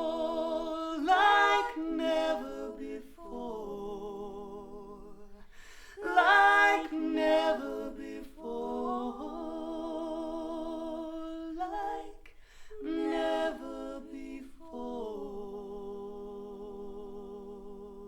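Recorded female voice singing long, wavering held notes without words in a few phrases, the last one held and fading near the end. It is played back over Harbeth SHL5+ loudspeakers driven by a KT88 valve amplifier in triode mode and picked up by the microphone in the room.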